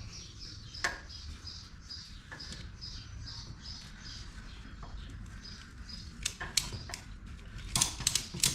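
A small bird chirps over and over, about three times a second, against a steady low hum, with a few single clicks. Near the end a ratchet strap starts to be cranked, rapid loud ratcheting clicks, tightening around a zero-turn mower's tubeless tire to push the bead out against the rim.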